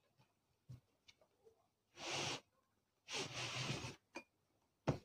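A blood pressure monitor's packaging being opened by hand: two short rustling bursts, the second longer, with a few light clicks and taps around them.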